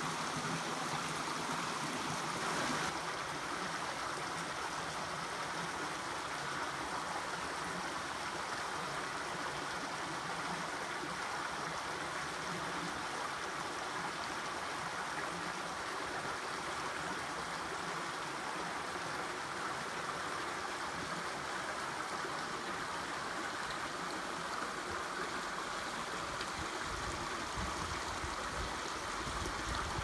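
River water flowing, a steady rush with no pauses.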